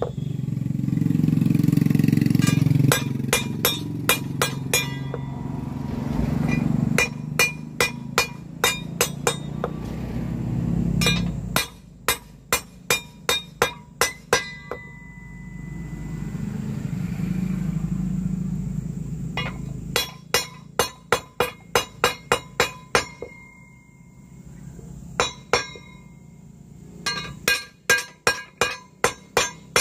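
Wooden mallet beating the brass blade of a three-blade boat propeller against a wooden block, in quick runs of sharp clinking blows with the metal ringing briefly after each, and short pauses between runs. The blades are being hammered to set their shape.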